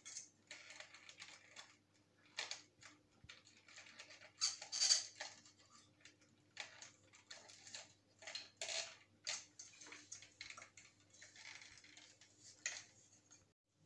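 Faint, irregular small clicks, taps and scraping rustles of hands handling and fitting small plastic and metal parts of a hair dryer during reassembly, over a low steady hum.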